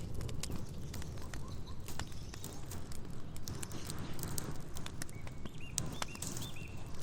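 Wood campfire crackling, with frequent sharp pops and snaps over a low steady rumble. Near the end a bird gives a short series of quick chirps.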